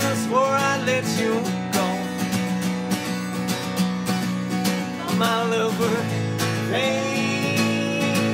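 Acoustic guitar strummed steadily in a folk song, with voices singing over it in phrases.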